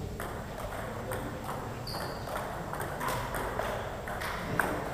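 Table tennis balls clicking off bats and tables during rallies: a quick, uneven series of light knocks, with one sharper, louder click near the end.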